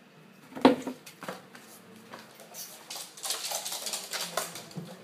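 A sharp bang, then a run of rattling clatters and scrabbling as a cat lunges and scrambles after a rat under a bathroom sink.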